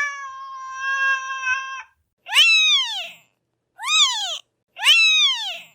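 Domestic cat meowing: one long, drawn-out meow held at a steady pitch that ends about two seconds in, then three short meows, each rising and then falling in pitch.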